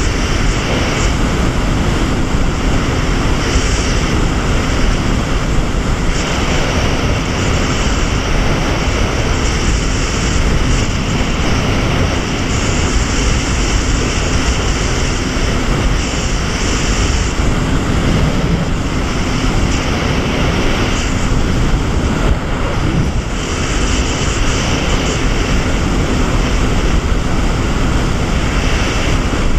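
Jet ski running steadily at speed: an even engine drone mixed with the rush of water churned into its wake.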